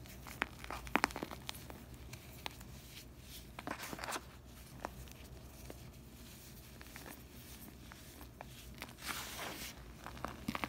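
Hands squeezing and crumbling a powdery slab of Comet and Ajax scouring powder mixed with gym chalk, making soft crunches and sharp crackles, with a quick run of crackles about a second in. Near the end comes a soft rushing hiss as handfuls of the powder pour back down.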